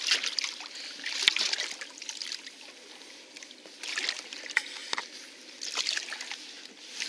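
Water splashing and slapping against the side of a small fishing boat in a light chop, in a few short clusters, with one sharp knock a little over a second in.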